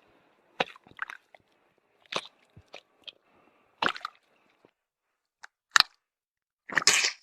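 Feet sinking into and pulling out of wet mud. About seven irregular squelches come a second or so apart, and the last one, near the end, is longer.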